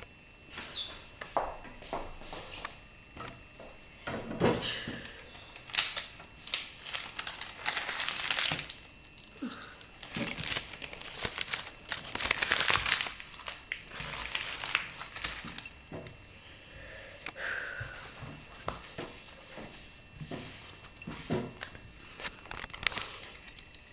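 Irregular bursts of crinkling and rustling, with scattered short clicks and knocks, as of something crumpled or handled.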